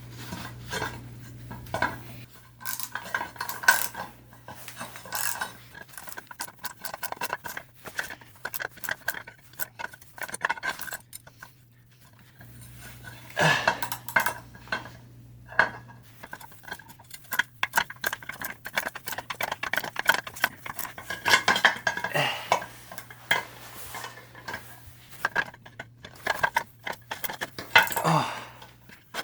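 Metal parts and tools clinking, tapping and clattering with short metallic rings, at an irregular pace, as an air compressor's cast-iron pump is disassembled and its crankshaft worked out.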